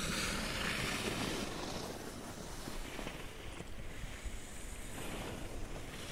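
Wind buffeting the phone's microphone as a steady rumbling rush, strongest in the first second or so and then easing a little.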